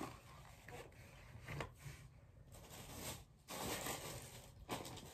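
Soft rustling and scraping of paper cards and packaging being handled, with a louder stretch of rustling for about a second past the middle.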